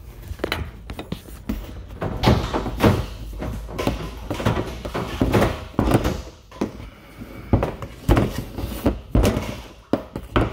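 Irregular hollow thunks and knocks as braided plastic drop-tube hoses are handled against the rim of a plastic poly tank.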